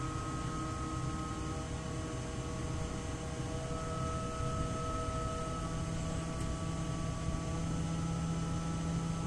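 York chiller running with two compressors and its condenser fans on: a steady mechanical hum with several steady tones, and a deeper tone joining about halfway through.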